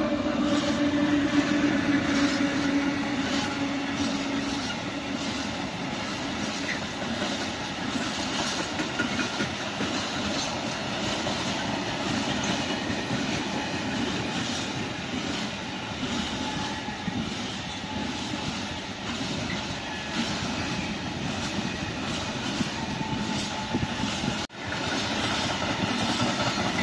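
PKP Cargo EU07 electric locomotive passing with a steady low hum over the first few seconds, followed by a long train of empty flat container wagons rolling by with a rattling rush and regular clickety-clack of wheels over rail joints. The sound briefly drops out near the end.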